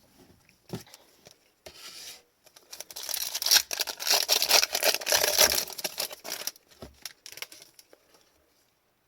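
Crinkling and rustling of hockey trading cards and a card-pack wrapper being handled, loudest for a few seconds in the middle, with small ticks of cards before and after.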